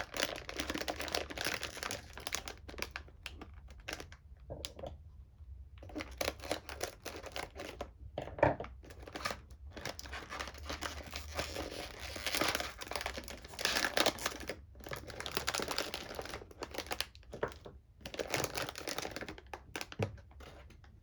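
Packaging crinkling and tearing as a product is unwrapped, in irregular bursts with short pauses and one sharper crack a little before the middle.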